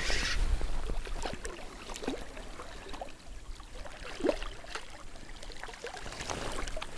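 Water splashing and swirling as a hooked chub is played at the surface close by, with scattered small splashes and a short burst of splashing right at the start.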